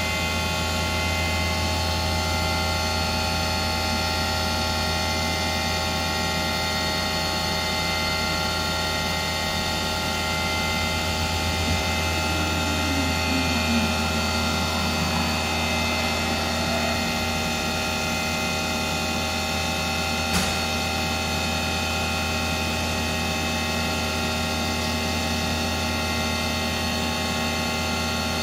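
A 1994 Fadal VMC15XT vertical machining center powered up and running, a steady low hum with several whining tones above it as the table traverses along its X axis. Near the middle a whine falls in pitch as an axis move slows, and a single sharp click comes about twenty seconds in.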